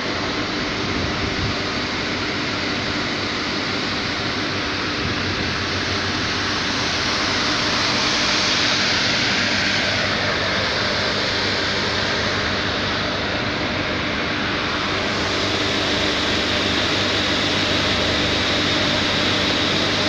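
Industrial boiler plant machinery running: a steady rushing noise over a low, even hum, swelling slightly midway.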